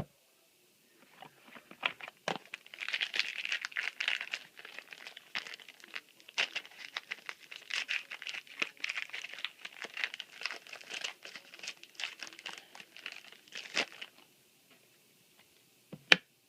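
Crinkling foil booster pack wrapper being torn open and handled, a dense crackle that starts about a second and a half in and stops about two seconds before the end.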